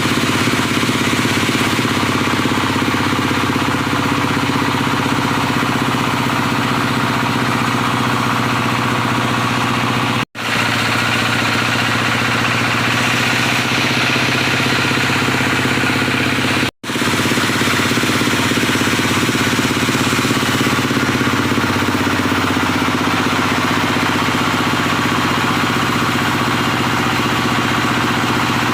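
Stationary diesel engine powering a wood sawmill, running steadily, with two split-second breaks in the sound about ten and seventeen seconds in.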